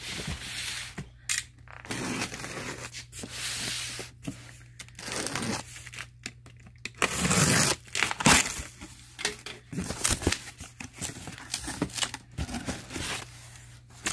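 Packing tape on a cardboard shipping box being slit with a box cutter and torn away in several long tearing stretches, the loudest about halfway through. Then the cardboard flaps and the boxes inside knock and scrape as the box is opened.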